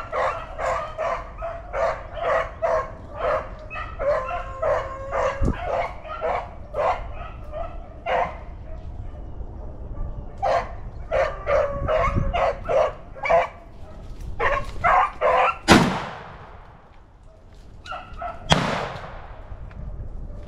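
A pack of beagles baying and yelping on a rabbit's trail. Near the end, a shotgun fires twice, about three seconds apart, each shot trailing off into the woods.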